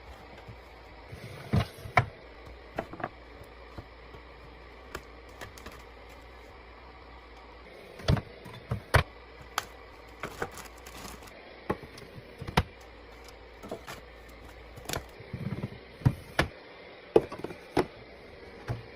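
Irregular clicks, taps and knocks of plastic containers and food items being handled and set down on refrigerator shelves as the fridge is organized, over a steady low background noise.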